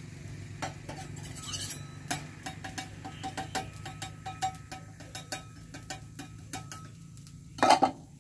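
Metal spatula clinking and scraping against a round crepe griddle as a crepe cooks: a string of light, irregular clinks, with one louder clatter near the end.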